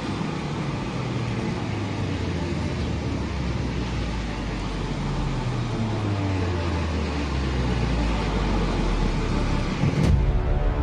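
Steady outdoor street noise: a dense rush with the low drone of vehicle engines running. It cuts off suddenly about ten seconds in, and tense background music begins.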